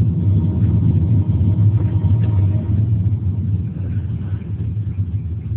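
Car driving along a road, heard from inside the cabin: a steady low rumble of engine and tyre noise that eases slightly in the second half.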